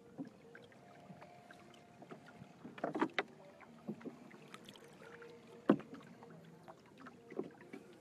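Small wooden boat moving on open water, with scattered knocks and splashes of wood and water against the hull. There is a cluster of knocks about three seconds in, and the sharpest single knock comes a little before six seconds.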